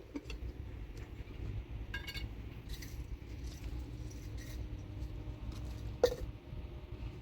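A steady low rumble, like wind on the microphone, with a light metallic clink about two seconds in, a few faint ticks after it, and one sharp knock about six seconds in, the loudest sound.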